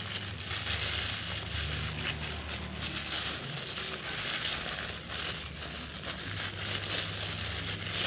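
Thin clear plastic bag crinkling and crackling continuously as it is squeezed and kneaded by hand around a soft mash of banana and wet feed pellets.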